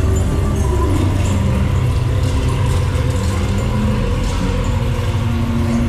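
A deep, steady rumble with faint held musical tones over it, and a low call-like tone that dips and rises about half a second in.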